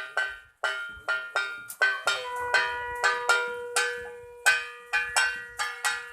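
A puja bell struck repeatedly in quick, uneven strokes, each ringing briefly with metallic overtones. From about two seconds in, a conch shell is blown in one long steady note that is held past the end.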